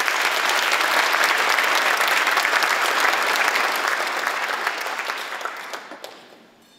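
Audience applauding: many people clapping steadily, then dying away near the end.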